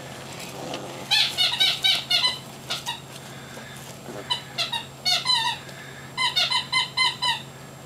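Young puppies squeaking and whimpering in quick runs of short, high-pitched cries, in four bursts.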